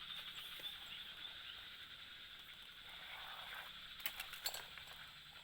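Faint steady outdoor background of a high, even hiss, with a few sharp clicks about four seconds in.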